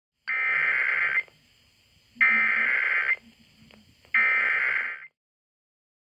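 Emergency Alert System SAME header: three bursts of warbling digital data tones, each about a second long and about a second apart. The header opens an EAS alert, here a Required Monthly Test relayed over AM radio.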